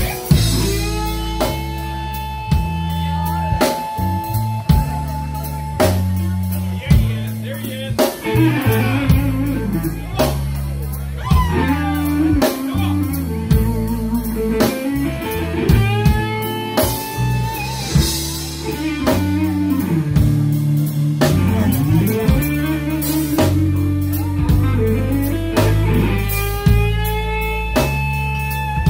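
Live blues band playing: electric guitar lead with bending notes over a walking bass line and a drum kit.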